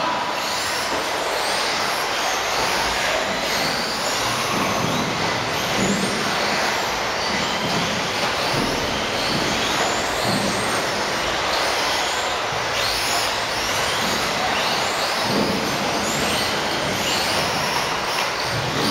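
Several electric radio-controlled off-road buggies, such as the Associated B4, racing together. Their motors and gears whine, rising and falling again and again as the cars accelerate and brake, over a steady hiss.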